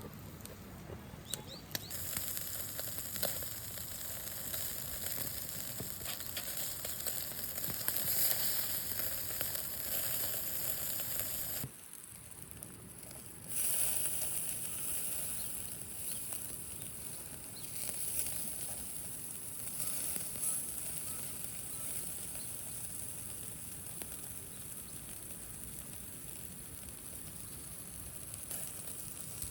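Food sizzling: a steady hiss with a few small pops, dropping out briefly about twelve seconds in and then carrying on.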